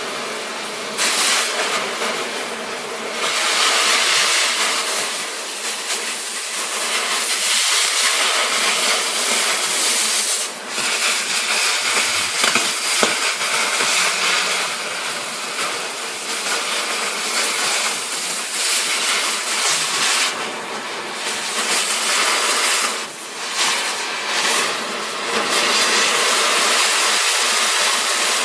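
Oxy-acetylene cutting torch hissing and crackling as it cuts through steel railroad rail, the hiss swelling and dipping as the cut goes on.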